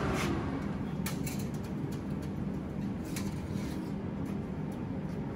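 Steady hum of commercial kitchen ventilation, with a couple of light clicks from handling inside an open combi oven.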